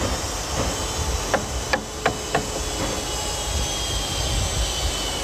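Hammer knocks on the wooden hull planking of a pinisi boat being fitted at the bow: about four sharp knocks in quick succession, starting about a second and a half in, over a steady hiss.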